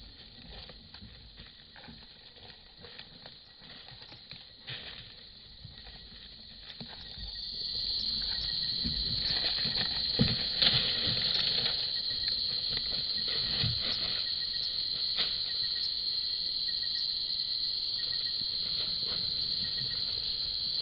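Nocturnal tropical-forest insect chorus, a steady high trill that swells about seven seconds in and then holds. Scattered rustling and low thumps come from a forest elephant moving past close by.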